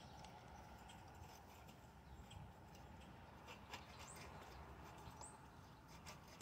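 Near silence, with faint small clicks and ticks from fingers handling the metal carburetor and throttle linkage of a lawnmower engine, and two brief high chirps about four and five seconds in.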